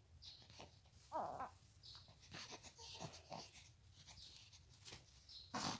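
Faint sounds of a baby being dressed: a short falling coo about a second in and a few small baby sounds, over soft fabric rustling, with a brief sharper rustle near the end.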